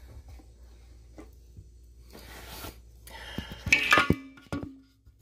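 Phone microphone handling noise: rustling and knocking with a few sharp clicks as the phone is moved against clothing, loudest about four seconds in, over a low hum in the first half.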